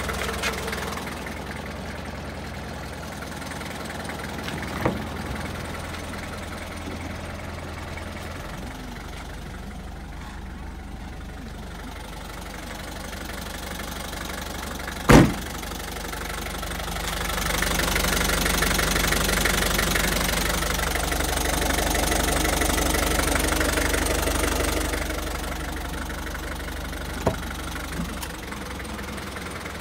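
Isuzu Elf truck engine idling steadily with a low hum. A single sharp knock comes about halfway through, and a stretch of louder rushing noise follows for several seconds.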